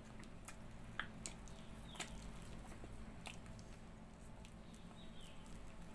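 Wet mouth sounds of someone eating the fibrous pulp of a ripe palmyra palm (tala) fruit: biting and chewing, with a few sharp smacks.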